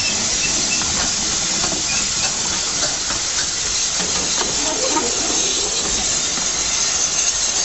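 Steady hiss of steam from a narrow-gauge steam tank locomotive, as its train of coaches rolls past.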